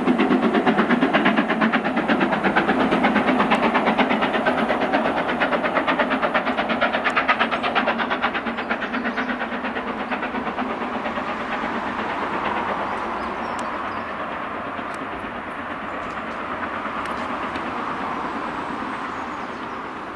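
LMS Princess Coronation class four-cylinder Pacific steam locomotive 6233 Duchess of Sutherland hauling its train away, with a rapid, even rhythmic beat over the first eight seconds or so. The beat then blurs into a steady rumble that slowly fades as the train draws away.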